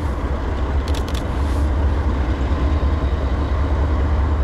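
Two Norfolk Southern diesel locomotives leading a freight train, their engines giving a steady low rumble that grows slowly louder as they approach.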